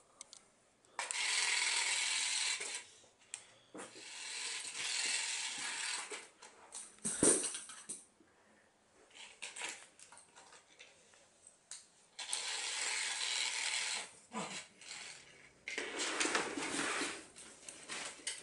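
Kittens playing, with rustling and scrabbling in bursts of one to two seconds and one sharp knock about seven seconds in.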